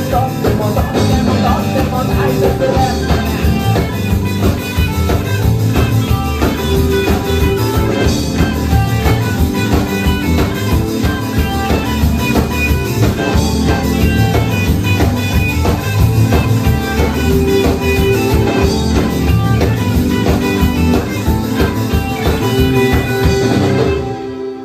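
A live rock band playing an instrumental passage: electric guitars, bass guitar, drum kit and a Roland JUNO-DS synth keyboard over a steady beat. The music cuts off abruptly near the end as the song finishes.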